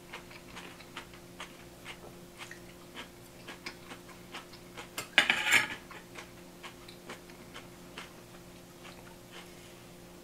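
Knife and fork cutting a crisp-coated fried chicken breast on a plate. A louder burst of scraping and crunching comes about five seconds in. Light, even ticks about twice a second and a faint steady hum run underneath.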